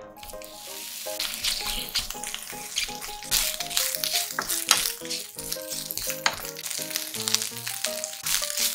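Food sizzling in a hot frying pan, a steady frying hiss with scattered clicks, under background music with a plucked melody.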